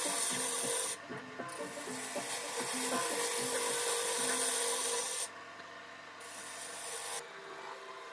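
Turning gouge cutting a spinning segmented wood bowl blank on a lathe, a steady hissing rasp of wood being shaved. It breaks off briefly about a second in and again around five seconds in, and is quieter near the end.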